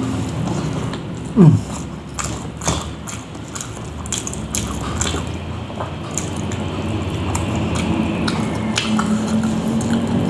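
A person chewing and smacking their lips while eating rice mixed with gravy by hand, with many small wet clicks. A brief falling squeak about a second and a half in is the loudest sound.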